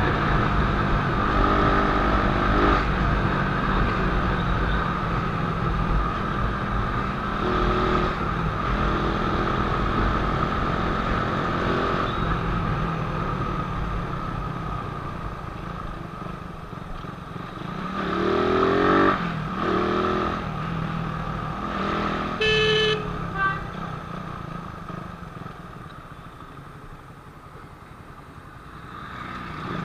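Suzuki Raider 150 carburetted single-cylinder engine running while riding in city traffic, over steady low road and wind noise. The engine revs up about eighteen seconds in, a horn toots briefly a few seconds later, and the sound eases off near the end as the bike slows.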